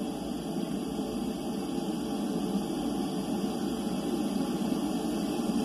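Steady underwater background noise from a hydrophone recording: an even, low rushing hiss with no distinct knocks or calls.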